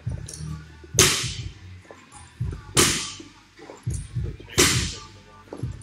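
Barbell loaded with bumper plates being worked through repetitions, about one rep every two seconds: three sharp clanks of bar and plates, each trailing off over about half a second, with low thuds in between.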